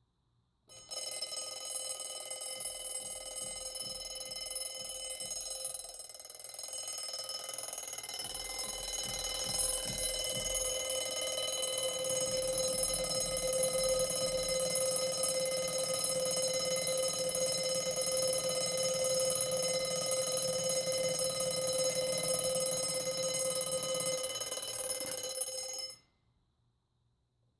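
Westclox Big Ben Style 7 wind-up alarm clock's alarm bell ringing continuously. It starts about a second in and cuts off suddenly near the end.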